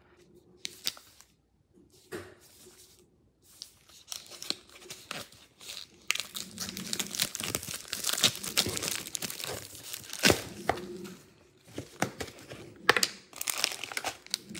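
Clear plastic film being torn off a paper instant-noodle cup and crinkled in the hands. Sparse crackles at first, then denser crinkling from about six seconds in, with a few sharp rips.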